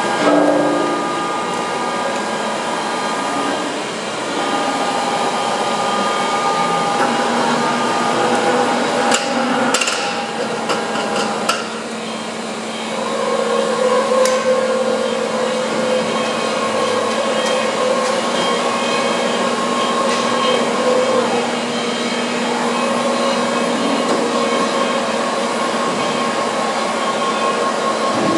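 UNION PC 130 CNC floor-type horizontal boring mill running, its drives giving off a steady mechanical whine that stops and starts in stretches of several seconds, as when axes are moved and halted. A few sharp metallic clanks come about ten seconds in.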